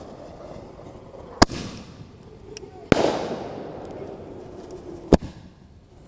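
Fireworks bursting in the air: three sharp bangs, about a second and a half, three and five seconds in, each followed by a fading echoing rumble.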